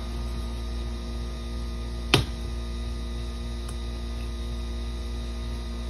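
A steady electrical hum, with one sharp click about two seconds in.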